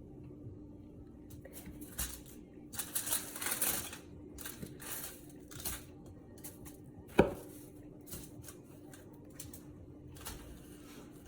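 Chicken cutlets being breaded by hand: scattered rustling and crunching of panko crumbs with light clatter of bowls and dishes, and one sharp knock about seven seconds in.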